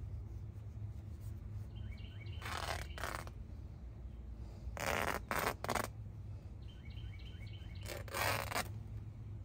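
Cloth rag rubbing and wiping over a car's plastic dashboard and steering column in three short spells. A small bird chirps in two quick runs of repeated notes, one shortly before the first wipe and one before the last.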